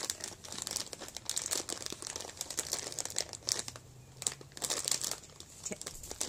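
A crinkly plastic snack-chip bag being handled and crumpled, with irregular clusters of sharp crackles.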